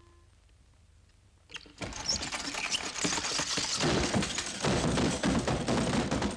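A rapid mechanical rattling clatter, like a machine running hard, that starts suddenly about two seconds in after near silence.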